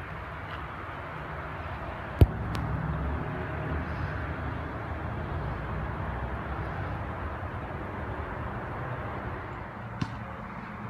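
Steady outdoor background rumble, with a sharp knock about two seconds in and a fainter one near the end.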